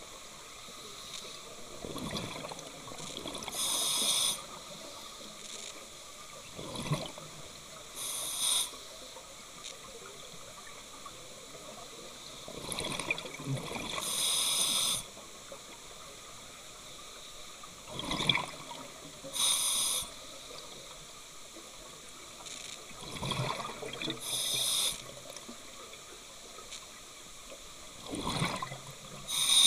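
Underwater scuba breathing: the demand-valve hiss of a regulator and the burble of exhaled bubbles, one breath about every five seconds, six in all.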